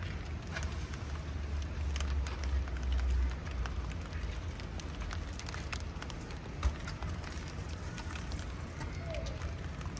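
Car cabin while driving in rain: a steady low road and engine rumble with scattered ticks of raindrops on the car, and one low thump about two-thirds of the way through.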